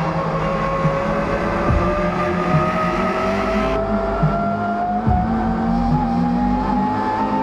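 Chevrolet Cruze TC1 touring car's turbocharged 1.6-litre four-cylinder engine heard from inside the cockpit, its note rising slowly and steadily.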